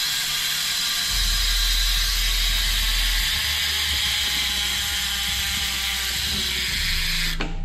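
Halo SuperDrive freehub ratcheting as the rear wheel freewheels, its pawls making a loud, fast, even buzz that cuts off suddenly near the end.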